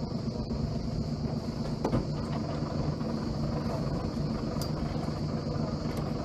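Sailing yacht's inboard diesel engine running steadily at low revs while manoeuvring to moor, with a single knock about two seconds in.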